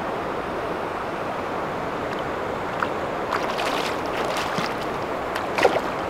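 Shallow river water running steadily. About three seconds in, a rainbow trout starts splashing at the surface in a cluster of short splashes, and the loudest splash comes near the end.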